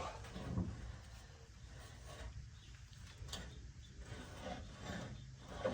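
Faint rubbing and a few soft knocks of metal mower-wheel parts being handled as the wheel, with spacers added on its shaft, is fitted and checked against the deck guard.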